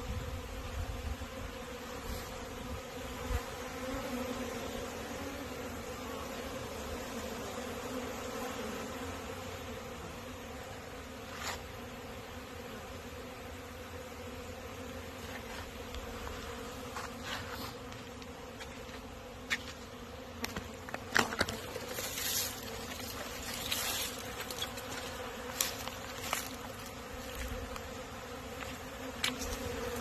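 Honeybees buzzing in flight around their hive entrances: a steady hum from many bees out on a cleansing flight. Short sharp clicks come now and then, most of them in the second half.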